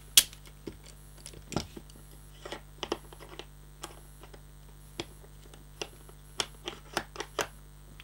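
Irregular metal clicks of a key being worked and turned in the lock of a hinged handcuff, a handmade Ian McColl reproduction, the sharpest click a moment in. The lock is stiff and needs the key turned further.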